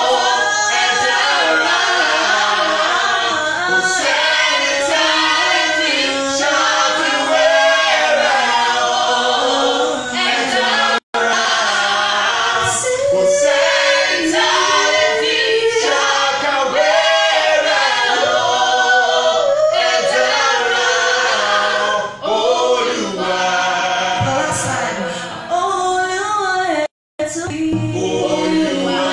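A woman singing a gospel praise song solo into a handheld microphone, her voice gliding and bending through long sung lines. The sound drops out to silence twice, briefly, about eleven seconds in and again near the end.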